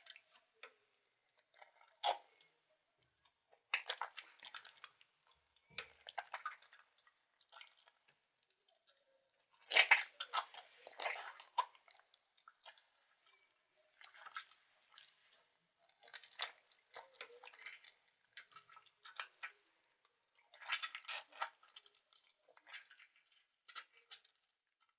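Hands squeezing and squishing the flesh of a melon in irregular clusters of wet squelches and crunches, made as a foley imitation of guts. The loudest bunch comes about ten seconds in.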